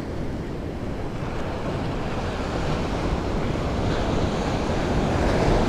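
Ocean surf washing up the beach, a steady rush of breaking waves, with wind buffeting the microphone. The surf grows slowly louder toward the end.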